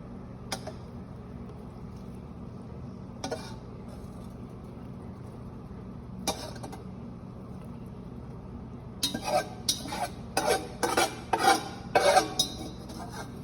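Kitchen utensil knocking and scraping against a cooking pot: a few single knocks, then a quick run of loud clattering strokes near the end, over a steady low hum.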